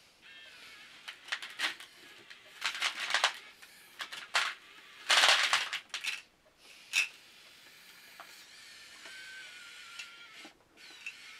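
Kyosho 1/50-scale radio-controlled Komatsu PC1250-8 excavator model working: faint whine of its small motors, with sharp clicks and short rattling, scraping bursts, the loudest about five seconds in.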